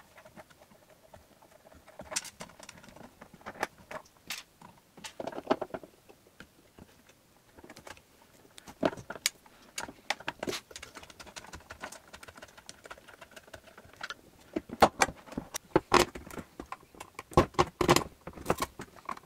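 Scattered clicks, knocks and light rattles of hands handling metal and plastic parts inside a Durst RCP20 print processor: cable connectors being unplugged and a screwdriver working on a fitting. The clicks come closer together and louder in the last few seconds.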